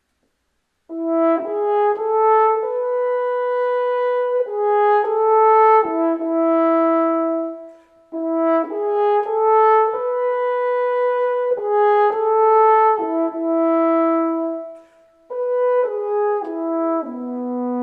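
Solo French horn playing an unaccompanied melody. After about a second of silence, a phrase of held notes climbs and falls back; after a short breath the same phrase is played again, and a third, falling phrase begins near the end.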